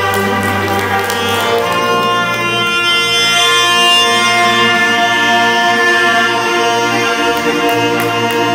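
Several taragots (Romanian tárogató, a reed instrument) playing a folk melody together in sustained reedy notes, accompanied by accordion and a double bass line.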